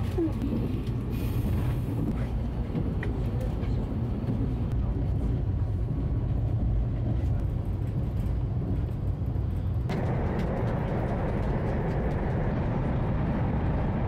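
Steady low rumble of a moving vehicle heard from inside, with the road or running noise turning brighter and louder about ten seconds in.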